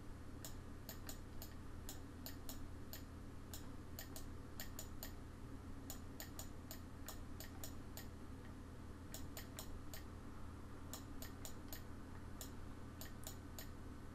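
Computer mouse clicks, often in quick pairs of press and release, coming irregularly as the mouse button picks and drags points, over a faint steady low hum.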